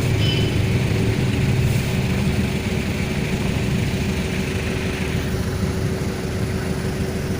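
Street traffic with vehicle engines running, an even rumble with a steady hum under it.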